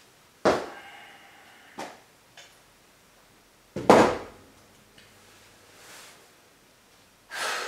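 A few knocks and thuds with a short room echo, the loudest about four seconds in, as objects are handled and set down.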